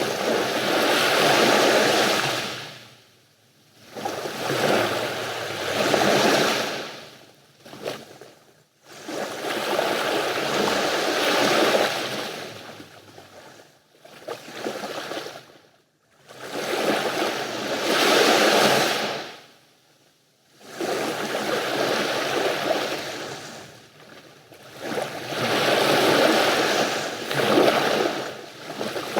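Mediterranean sea waves washing onto the shore, each swell of surf rising and falling away every four or five seconds, with short near-quiet lulls between.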